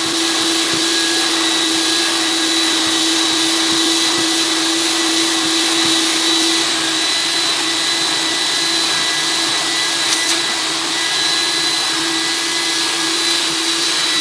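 Upholstery extractor machine running in suction-only drying mode, its hand wand pulling the applied cleaning solution back out of fabric upholstery. A steady vacuum-motor drone with a constant hum and a high whine.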